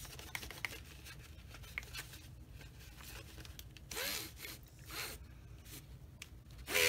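Paper towel rustling as it is picked up and rubbed over the metal shaft of a handheld paint-stirring device to wipe off primer. There are short rustles about four and five seconds in and a louder one near the end.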